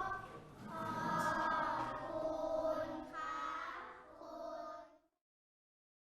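A group of children's voices chanting together in a drawn-out, sing-song unison. They stop about five seconds in.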